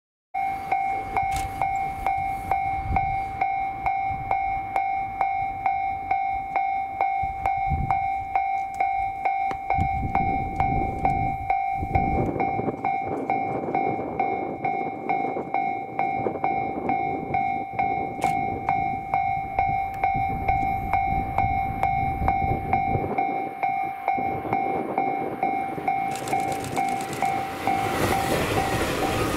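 A railway level-crossing warning bell ringing in a steady rhythm while a train runs past, the train's running noise swelling near the end.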